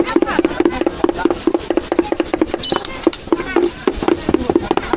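Cleaver chopping meat for roujiamo on a wooden block, in a fast, even rhythm of about six strikes a second, each blow knocking on the wood.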